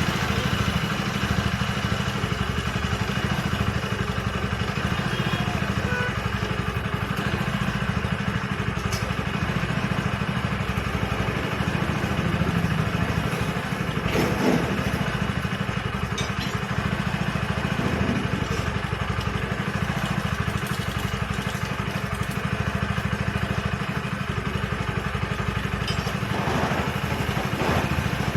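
Hero Splendor Pro BS6's single-cylinder four-stroke engine idling steadily just after being started, running on its newly fitted timing chain and tensioner.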